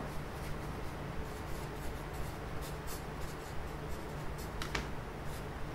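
Pencil writing on grid paper: light, short scratching strokes over a faint steady low hum.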